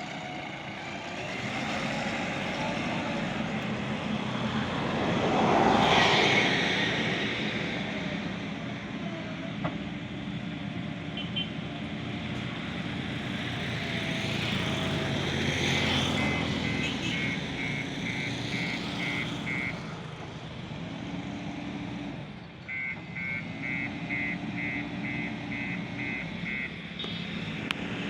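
Diesel engine of a JCB backhoe loader and truck running steadily, swelling loudest about six seconds in. A reversing alarm beeps in two runs of about three beeps a second, in the second half.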